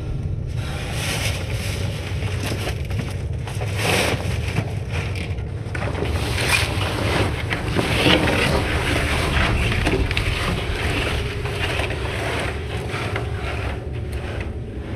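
A man crawling through a narrow sheet-metal ventilation duct: clothes, knees and shoes scraping and knocking against the metal walls, over a steady low rumble.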